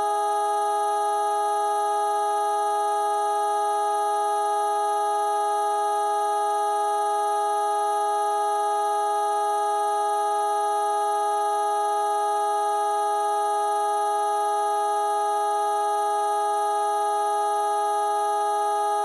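Vocoder sound effect: a steady electronic drone of many fixed tones sounding together, held without any change in pitch or loudness.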